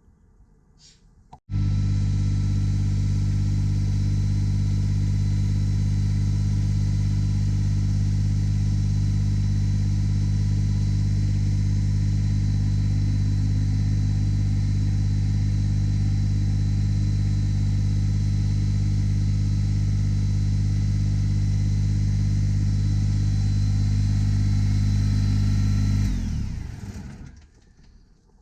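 Kubota BX25D tractor's diesel engine running at a steady speed, cutting in abruptly about a second and a half in, then winding down and stopping near the end.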